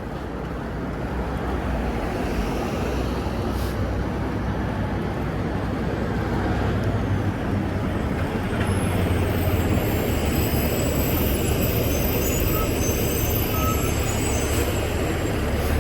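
City street traffic: passing vehicles with a steady low rumble, with faint high-pitched squeals in the second half.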